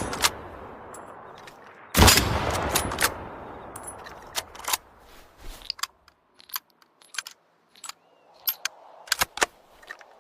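A single Mosin-Nagant rifle shot about two seconds in, with a long echoing tail that dies away over about three seconds. It is followed by a scattering of sharp metallic clicks.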